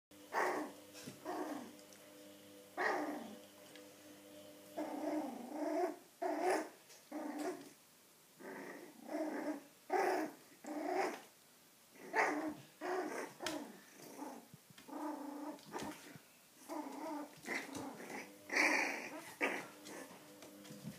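Two Chinese crested puppies growling and yapping in short repeated bursts as they play-fight, with a louder bark near the end.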